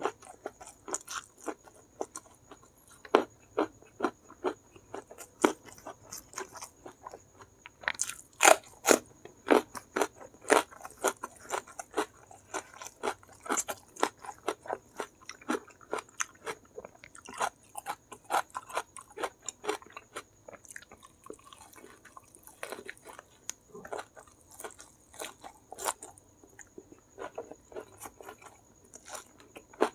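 Close-up chewing and crunching of a mouthful of crispy fried chicken (ayam geprek) with rice and chili sambal: many quick, irregular crunches and mouth clicks, loudest and thickest about eight to eleven seconds in.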